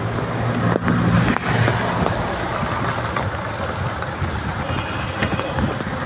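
Traffic on a rain-soaked city street: vehicle engines running under a steady hiss of rain and wet tyres, with a low engine hum strongest in the first second or so and a few sharp clicks.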